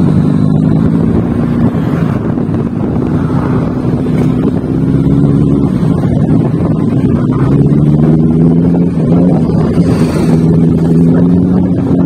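Motor vehicle engine running steadily under a heavy low rumble. Its pitch drops about halfway through and climbs again a couple of seconds later.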